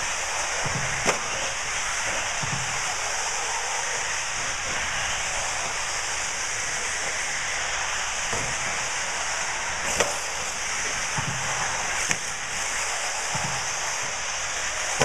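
1/8-scale radio-controlled off-road buggies racing on an indoor dirt track: a steady noise with a few sharp knocks, about a second in, near ten seconds and just after twelve seconds.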